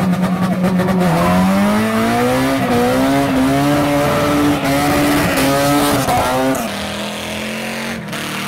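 Honda Civic engine revving hard, its note climbing steadily while the front tyres spin and squeal in a burnout. About two-thirds of the way through, this gives way to a lower, steadier engine note.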